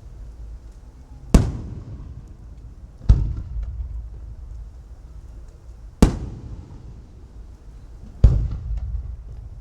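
Aerial firework shells bursting, four sharp bangs a few seconds apart, each trailing off in a low rumbling echo, with faint crackling between.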